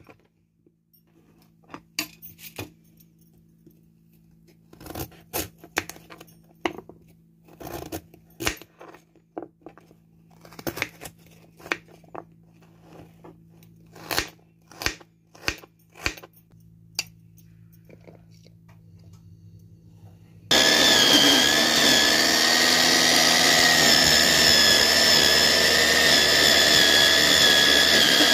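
A knife cutting a carrot on a plastic cutting board: irregular chops and clicks. About twenty seconds in, an electric mini food chopper starts abruptly and runs steadily with a whine, chopping raw vegetables.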